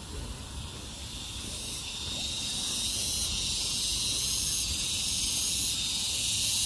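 A chorus of insects in the trees: a steady, high-pitched shrill hiss that builds over the first couple of seconds, then holds.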